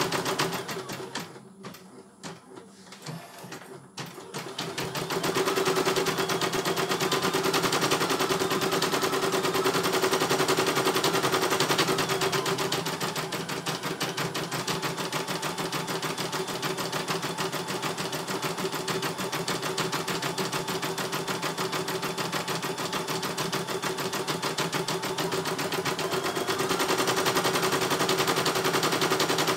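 CNY E900 computerized embroidery machine stitching a design: a rapid, even clatter of needle strokes over a steady motor hum. The stitching drops away about a second in and starts again around five seconds in.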